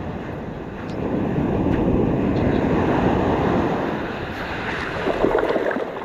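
Shore-break waves washing up a beach, with wind buffeting the microphone; the surf swells about a second in and eases again, and near the end there are a few short splashes of water close by.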